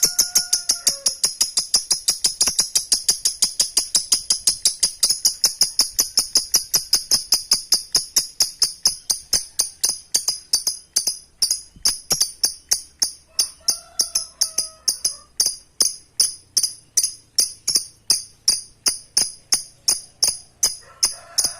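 Lovebird in a long ngekek: an unbroken series of sharp, high chattering notes, about five a second at first and slowing to about three a second toward the end.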